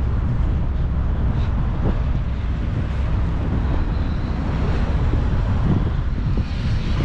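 Wind buffeting the microphone: a steady, loud low rumble with no clear events in it.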